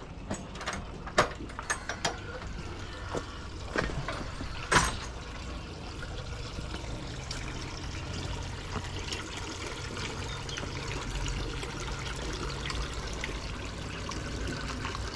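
Water pouring and trickling steadily into a koi pond from its filter return. A few sharp clicks and knocks come in the first five seconds.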